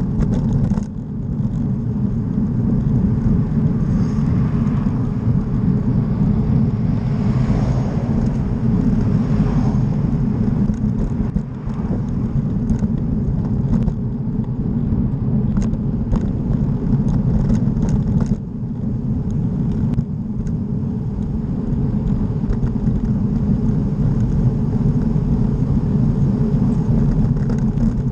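Steady low rumble of wind buffeting the microphone and tyre noise from a bicycle riding along a road. A broader rushing noise swells and fades about five to ten seconds in, and a few small clicks come later.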